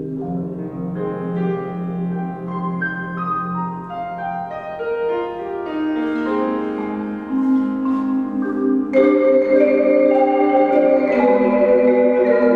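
Percussion ensemble with piano playing a concert piece, led by marimbas and vibraphone holding sustained notes that move in steps. About nine seconds in, the ensemble comes in louder and brighter.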